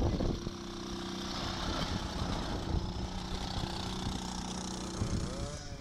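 Quad bike engine running at a steady idle, holding one even pitch.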